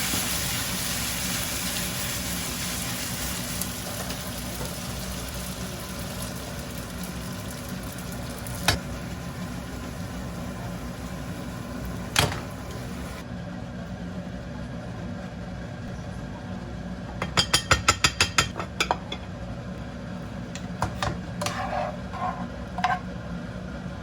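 Food sizzling in oil in a frying pan, a steady hiss that thins out about halfway through. Over it come two sharp knocks, a quick run of about eight clicks some seconds later, and a few light clinks of utensils on the pan near the end.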